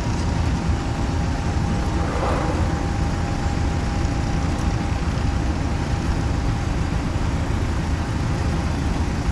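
Heavy engine running steadily, a low rumble with a faint constant whine over it. A brief rustle comes about two seconds in.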